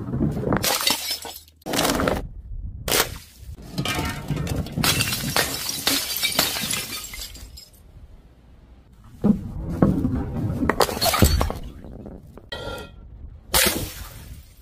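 Glass jars smashing one after another on paving stones, each a sudden crash of breaking glass followed by scattering shards. There are several separate crashes, with a quieter gap in the middle and a brief ringing clink near the end.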